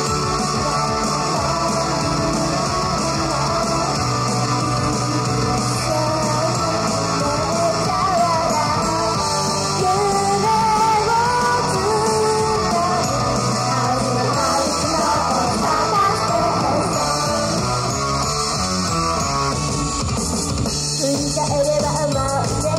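Live idol-pop performance: female voices singing into microphones over loud rock-style backing music with guitar, played through the venue's PA.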